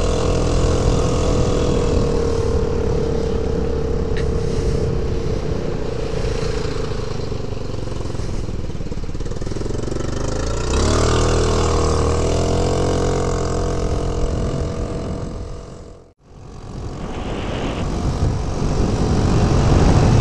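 Suzuki Burgman 125 scooter's single-cylinder engine running on the move, under road and wind noise. The engine note sinks slowly as the scooter slows, then climbs as it pulls away about eleven seconds in. The sound drops out sharply around sixteen seconds and fades back up.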